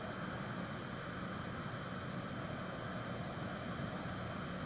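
Steady, even hiss of room tone with no distinct events.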